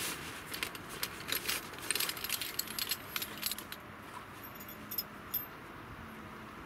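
Folding camp chair being unpacked and opened out: its metal legs and frame clink and rattle in a quick flurry of light clicks, ending with a few sharp clicks about five seconds in.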